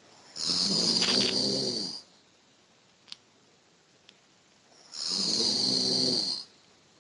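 A sleeping person snoring: two long snores about four seconds apart, each lasting well over a second, with faint clicks between them.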